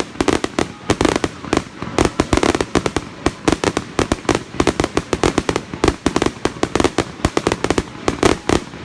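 Fireworks going off in a rapid, irregular string of sharp bangs, several a second, with no let-up.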